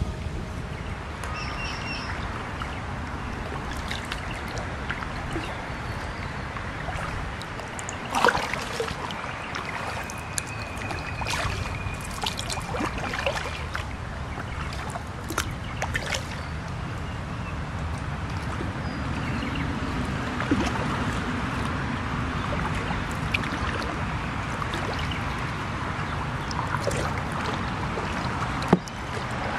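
Water trickling and sloshing around a kayak's hull as it moves along the creek, with scattered paddle splashes and knocks. A thin whistle sounds for a couple of seconds about ten seconds in.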